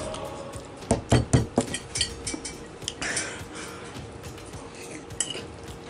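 A utensil clinking against a dish, several quick strikes about a second in, over background music.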